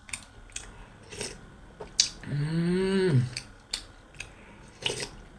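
A person eating: chewing and mouth sounds with several sharp clicks. About two seconds in comes one hummed note of about a second.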